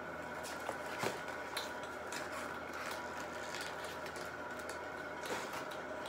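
Scattered light clicks and taps from handling a bicycle wheel and its tire, the strongest about a second in, over a steady faint hum.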